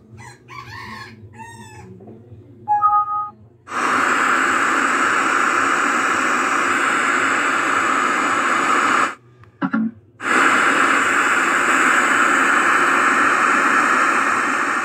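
Portable Bluetooth speaker with FM radio giving a short two-tone beep as its buttons are pressed, then a loud steady hiss of untuned FM static from its driver. The hiss cuts out for about a second some nine seconds in and comes back.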